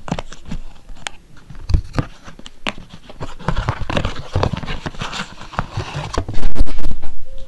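Cardboard camcorder box being opened by hand: flaps pulled open with repeated clicks, scrapes and rustling of the card, and a burst of loud bumping handling noise near the end.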